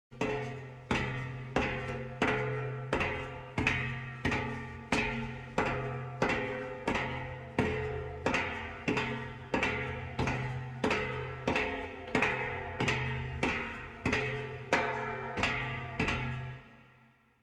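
Footsteps of leather-soled shoes on a steel staircase, an even pace of about one and a half steps a second, each step clanging with a ringing, humming resonance from the metal. The steps fade away near the end.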